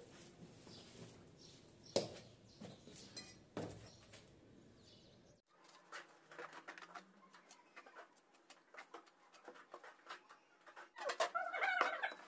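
Two sharp knocks and a few softer taps, like tiles being tapped down during floor tiling, then faint scattered clicks, with birds calling near the end.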